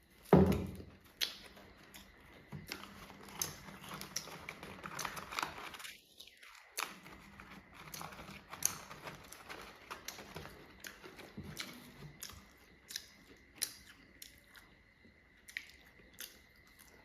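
A person chewing and crunching fried chicken close to the microphone, with irregular sharp crunches and clicks. A louder thump comes just at the start.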